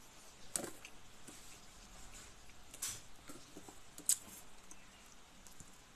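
Soft sounds of a person eating rice by hand from a plate: faint rustling and scraping, with a few sharp clicks, one about half a second in, one near three seconds and the loudest just after four seconds.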